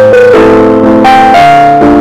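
Background piano music: a melody over sustained chords, the notes changing about every half second.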